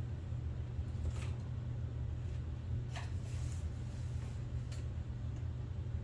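A few faint scrapes and light knocks as a wooden desk part is shifted by hand into position, over a steady low hum.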